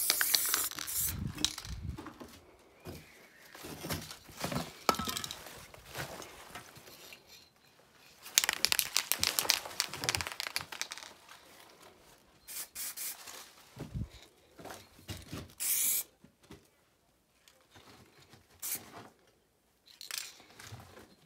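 A spray-paint can hissing, fading out about a second in, followed by intermittent rustling, crinkling and scraping handling noise. There is a denser crackly stretch about eight seconds in and another brief hiss near sixteen seconds.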